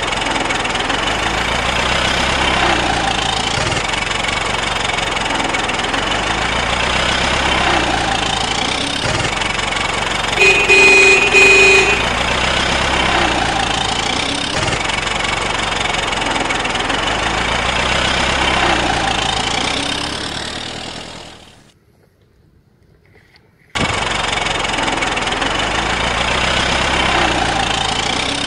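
Truck engine sound effect, looped, running steadily and repeating every five seconds or so, with a horn honk of about a second and a half near the middle. The engine fades out about three-quarters of the way through, stops for about two seconds, then starts again abruptly.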